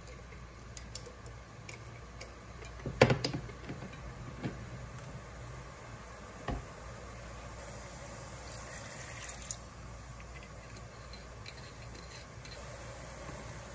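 Soy-based sauce with mirin and cooking wine simmering and bubbling in a pan. A cluster of knocks comes about three seconds in, with single knocks a little later, as glass bottles are handled and set down.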